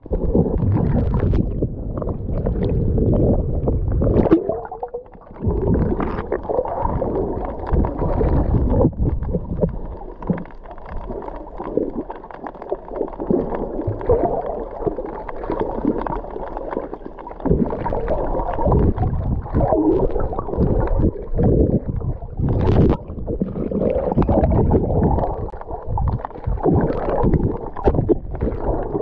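Underwater churn of water rushing and gurgling past a swimmer's camera, dull and mostly low-pitched. It surges and eases unevenly, with a few small knocks.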